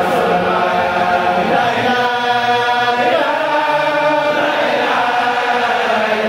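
Large group of men chanting together in unison, a religious chant in a mosque, voices sustaining long notes, one held for about a second near the middle.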